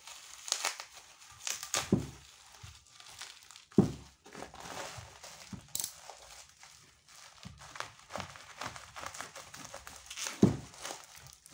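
Plastic packing wrap crinkling and tearing as a box-cutter blade, gone blunt, saws slowly through the layers, with a few sharp knocks.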